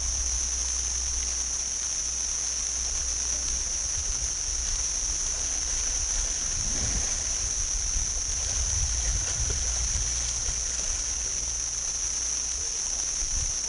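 Steady high-pitched drone of insects in the riverside jungle, over a low uneven rumble.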